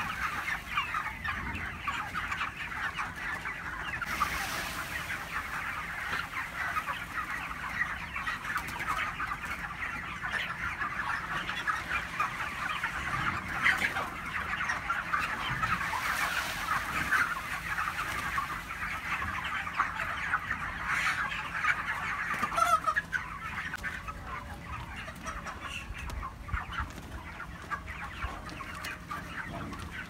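A large flock of broiler chickens clucking and cheeping continuously, with many short calls overlapping.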